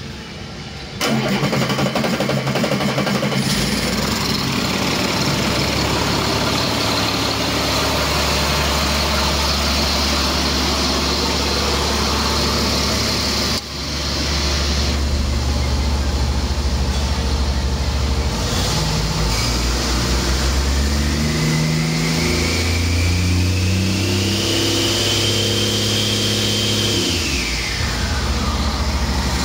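Caterpillar C7 ACERT inline-six turbo diesel starting about a second in and then running steadily. About two-thirds of the way through it is revved up over several seconds with a rising turbocharger whine, then drops back to idle near the end.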